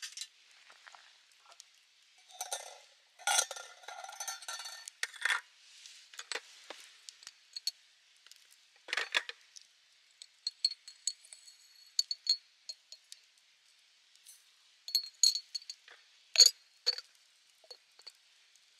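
A glass storage jar and tableware being handled: a stretch of rustling clatter, then a run of sharp, high glassy clinks as the jar is tipped and loose tea leaves are shaken out into a stainless steel tea strainer. The loudest clinks come near the end.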